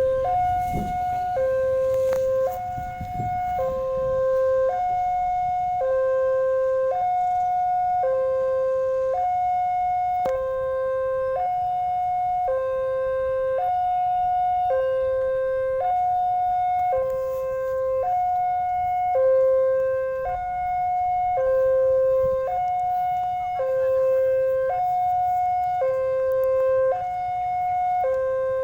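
Railway level-crossing warning alarm sounding its two-tone signal, a higher tone then a lower one, repeating about every two seconds over a low rumble: the warning that a train is approaching.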